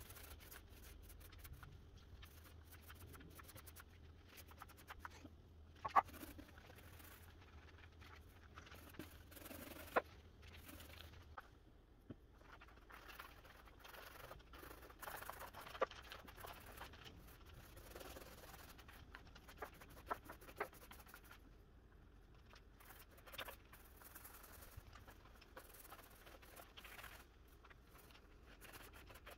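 Faint scratchy rolling and tapping of a small foam paint roller working paint onto a wooden speaker box, with a few sharp clicks and a low hum that stops about a third of the way through.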